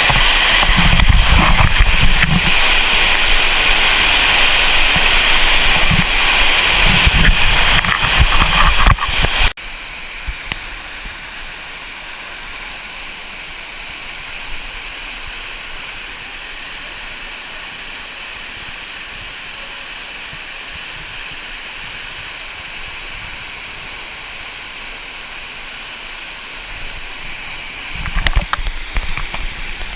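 Cascading water of Dunn's River Falls close by: a loud, steady rush. About a third of the way in it cuts off abruptly to a much quieter steady hiss, and the loud rush comes back briefly near the end.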